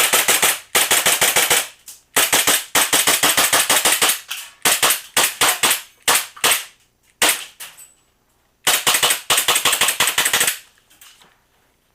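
Airsoft gun firing on full auto in a string of rapid bursts, from a fraction of a second to about two seconds long; the firing stops near the end.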